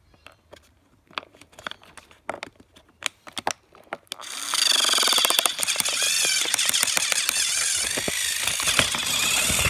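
A few scattered clicks and knocks, then about four seconds in a battery-powered toy train engine's motor starts running on plastic track: a steady whirring whine with a fast rattle.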